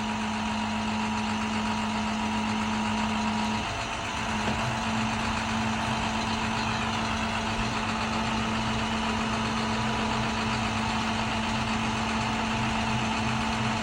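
International 4300's MaxxForce DT diesel running steadily, driving the PTO hydraulics while the Stellar crane is operated. It makes a steady hum with a brief dip about four seconds in.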